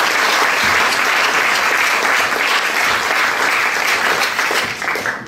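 Audience applauding, a full room of clapping that dies away near the end.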